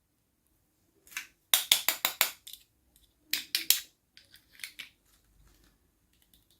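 Packaging being opened for an unboxing: a quick run of about six sharp, crisp crackles or snips about a second in, three more shortly after, then a few fainter ones.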